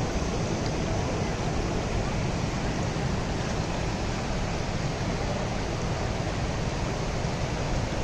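Steady rushing of a mountain waterfall and the shallow stream flowing over rocks at its foot.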